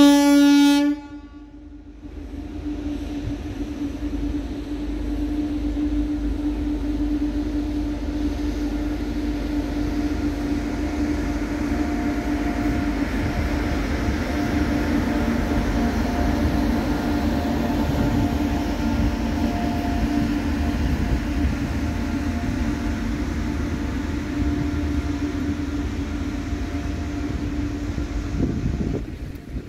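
A locomotive horn gives one short, loud blast. Then a WAG-9 electric locomotive passes, hauling loaded open coal wagons: a steady rumble of wheels on rails with a held low hum, which drops off just before the end.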